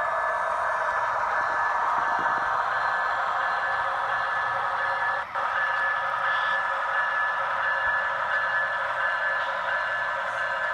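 Model railroad diesel locomotives running: a steady mid-pitched drone with a thin high tone held through it. It cuts out briefly about five seconds in.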